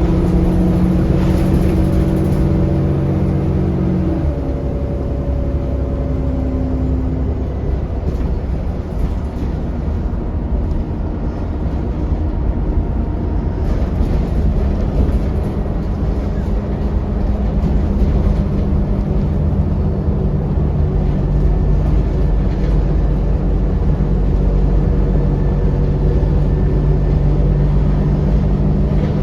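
Alexander Dennis Enviro400 double-decker bus on the move, heard from inside: a steady engine drone over road rumble. The engine note drops away about four seconds in and a new, lower steady note comes in about halfway through.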